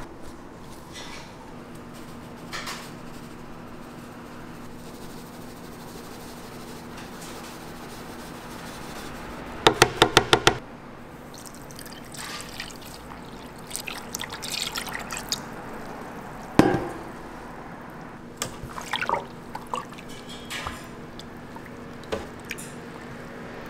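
A clear liquid is poured into a stainless steel pan of sauces and spices, with a quick run of about six sharp taps just before it. A single loud knock and some clatters follow, over a steady low hum.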